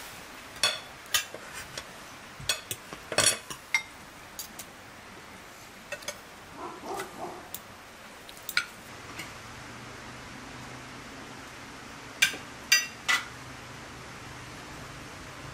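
Cutlery and dishes clinking: scattered sharp clinks of utensils against plates and pots, with a cluster of three near the end. A faint steady hum sets in about two-thirds of the way through.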